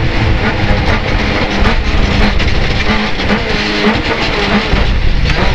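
Rally car's engine and chassis heard from inside the cabin as the car comes off full throttle and brakes hard for a tight chicane: the steady high engine note breaks off, and the revs drop low and waver under heavy rumble and rattle from the car and the road.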